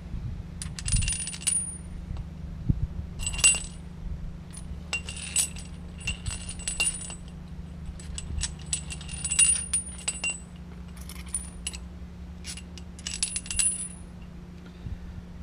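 Steel flat washers and bolts clinking together as a washer is slipped onto each bolt, in several clusters of light metallic clinks with a short ring, over a steady low hum.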